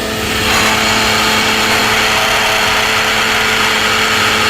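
Running car engine with a bad alternator bearing, heard up close at the alternator: a steady whirring hiss over a steady hum, the hiss coming up about half a second in.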